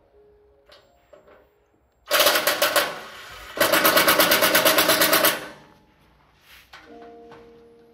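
Cordless impact driver hammering on a bolt on a gas-engine air compressor, in two bursts: a short one about two seconds in, then a longer one of about a second and a half.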